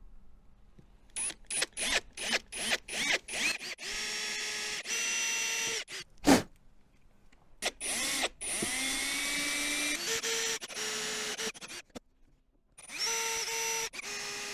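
Cordless drill fixing an aluminium window sill to its frame. It starts with a quick series of short trigger bursts, each spinning up, then gives several longer steady runs. There is one sharp knock about six seconds in.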